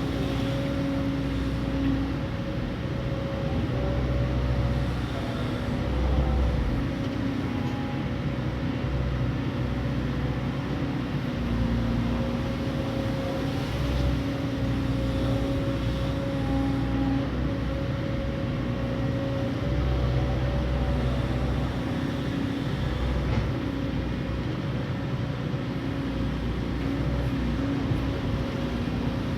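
Hydraulic excavator at work: its engine runs steadily with a held whine, and a low rumble swells and eases every few seconds as the machine takes load.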